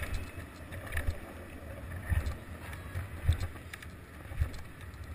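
Skateboard wheels rolling fast over asphalt, a steady rough rumble and hiss, with wind buffeting the action-camera microphone and a few low thumps about a second apart.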